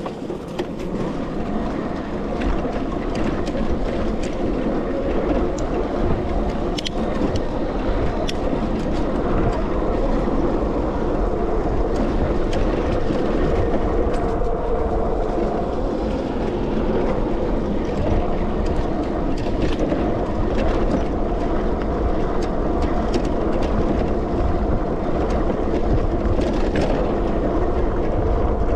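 Sondors MadMods electric bike ridden over a dirt and grass trail: a steady rush of tyre and wind noise, with scattered clicks and rattles from the rough ground.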